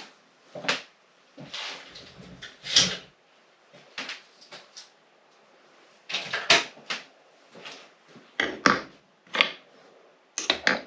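Irregular clicks, knocks and rattles of crossbow bolts and their magazine being handled on a work surface, with several sharper knocks around the middle and near the end.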